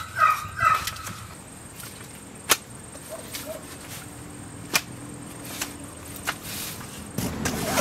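Camp gear being handled: a few sharp, separate clicks, then rustling that rises near the end. A few short chirps sound in the first second.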